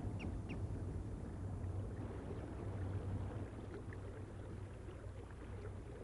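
Wetland ambience: distant birds calling over a low steady rumble, with two short high chirps in the first second and another near four seconds in.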